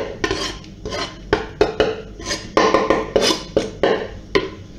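Kitchen utensil clinking, tapping and scraping against a mixing bowl as chopped herbs are added to raw chicken mince: a rapid, irregular run of clicks, some with a brief ring.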